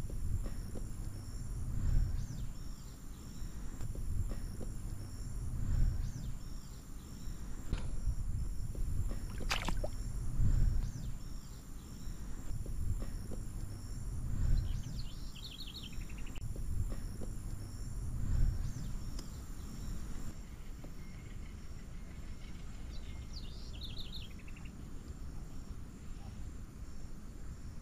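Outdoor ambience: steady high-pitched insect trilling with a few short bird chirps, over a low rumble that swells and fades every few seconds. There is one brief sharp sound about ten seconds in.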